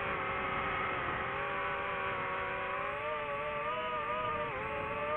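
DJI FPV drone's motors and propellers whining in flight as a steady stack of pitches that shifts with throttle. The pitch rises a little about three seconds in and dips briefly near the end.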